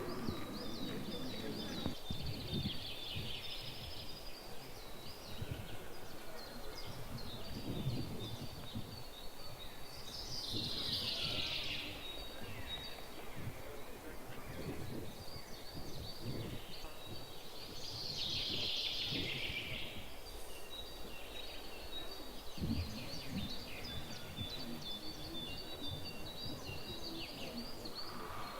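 Several wild birds singing and chirping in woodland, with many overlapping high phrases. Twice, about a third of the way in and again past halfway, a louder song sweeps down in pitch. Scattered low thumps sound beneath.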